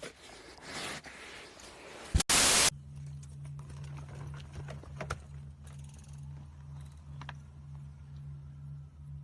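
A brief, loud burst of static about two seconds in, followed by a low steady hum with a few faint clicks.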